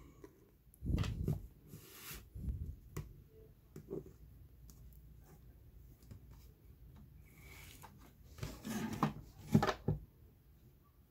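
Scattered soft clicks and knocks as an iPad Air 2's detached display panel is handled and lifted away from the tablet's frame, with louder knocks about a second in and again near the end.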